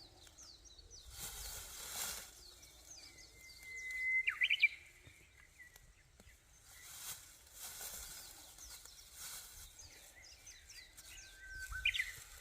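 Songbirds singing: many short high chirps, and twice a long, steady whistled note that breaks into a quick rising flourish. A few brief surges of noise pass under them.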